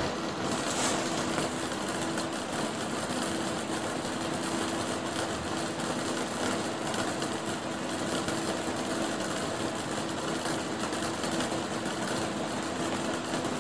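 Electric desk fan running: a steady whirring hum with a faint low drone, unchanging.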